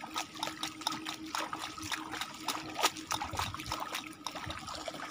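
Water splashing and trickling in quick, irregular splashes as a mesh bag of fish is swished back and forth through shallow water to rinse it.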